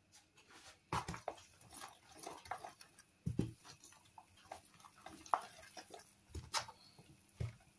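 Hands kneading and squishing grated raw potato dough and flour in a plastic tub: irregular soft squelching and scraping, with a few dull thumps.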